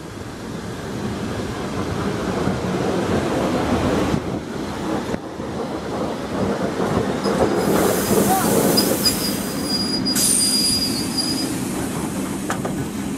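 ER2-type electric multiple unit rolling past, its wheels running on the rails over a steady hum. From about seven seconds in, a thin high wheel squeal sounds for about four seconds.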